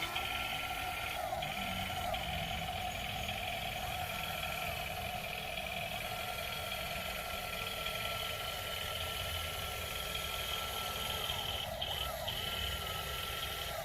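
Small electric motors and gears of a 1:16-scale RC excavator whining under a steady hum. The whine rises in pitch as a motor spins up, holds, then falls away as it stops, several times over, with one long run in the middle.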